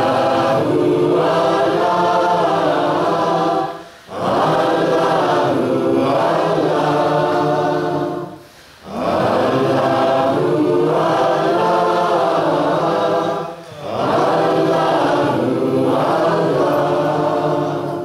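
A congregation chanting a short phrase in unison. The phrase is sung four times, each about four seconds long, with a brief breath between them, and the chanting stops right at the end.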